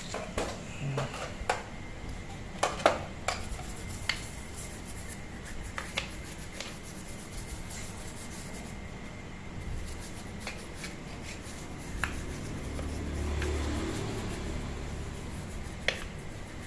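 Scattered light metallic clinks and taps from motorcycle engine parts being handled during cleaning, a few close together near 3 seconds in and one more near the end, over a low steady background hum.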